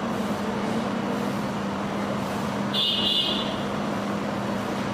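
Steady background noise with a low hum, and a brief high-pitched tone about three seconds in.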